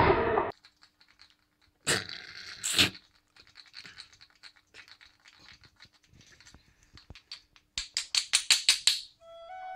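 Close handling noise of hands working small objects over a plastic plate: scraping and rustling bursts, light ticks and taps, then near the end a quick run of about eight scratchy rubbing strokes.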